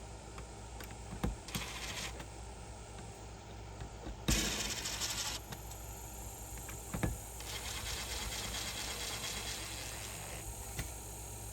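Scattered small clicks and knocks of hand work on an exterior electrical box, with a sharper knock about four seconds in and another about seven seconds in, over faint hiss.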